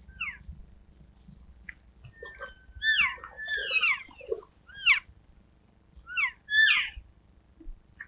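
Elk calling: a series of high, squealing calls that slide down in pitch, a few short ones, then a longer run of overlapping calls, with further loud calls near the end.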